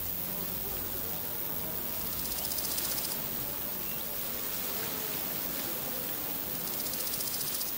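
Outdoor ambience with a steady hiss, and a high, rapid buzzing trill that comes in twice for about a second each time, with faint scuffs and rustles underneath.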